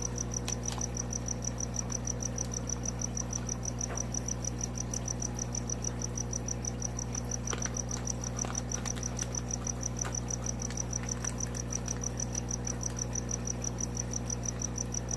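High-pitched chirping, about five even pulses a second, over a steady low hum, with a few faint crinkles of plastic fish bags being handled.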